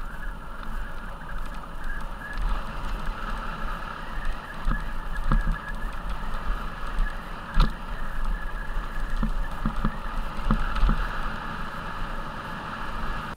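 Mountain bike rolling downhill on a gravel track: steady tyre crunch and rattle with a low wind rumble on the microphone, and a few sharp knocks from bumps, the loudest about halfway through.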